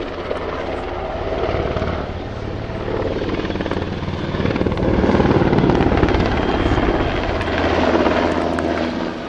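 NHIndustries NH-90 twin-engine helicopter flying a display pass, its four-blade main rotor beating over the turbine noise. It grows louder through the middle as it banks close overhead, swells again near the end, then eases off.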